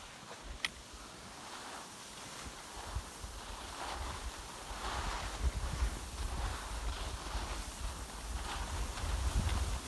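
Wind buffeting the microphone, a low rumble that builds from about three seconds in, with swishing hiss of skis sliding over snow. One sharp click just under a second in.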